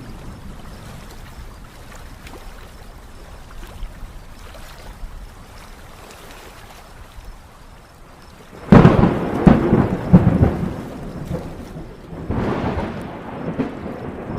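Thunder over a steady background hiss. Well past halfway there is a sudden loud clap that rumbles on for a couple of seconds, and a second, weaker rumble follows near the end.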